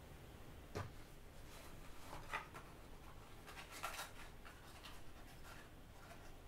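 Quiet room with faint rustling and a few soft clicks as a person shifts on a bed.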